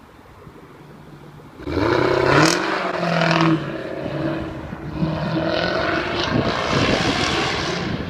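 Jaguar F-Type's supercharged engine idling quietly, then opening up hard about two seconds in as the car accelerates, its note rising, dipping, and rising again. Near the end, sharp crackles from the exhaust.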